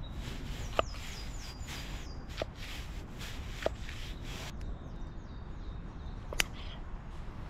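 Fixed-blade bushcraft knives cutting on a wooden cutting board: four sharp knocks as the blade goes through a bell pepper and then a fish fillet and meets the board, the last one the loudest. A bird sings runs of falling notes in the background.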